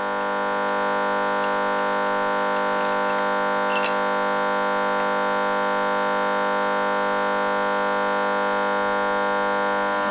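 Hyundai G4NA 2.0-litre four-cylinder engine being cranked over by an electric motor during a compression test. The whine builds over the first second, then holds a steady pitch.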